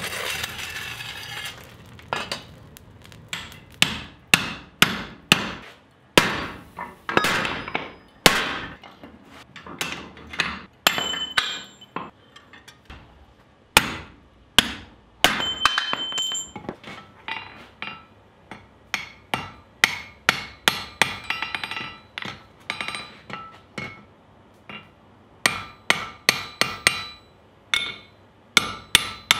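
Blacksmith's hand hammer striking hot steel on a swage block and anvil, in quick runs of blows with short pauses, many blows leaving a brief metallic ring. A short rush of noise comes before the first blows.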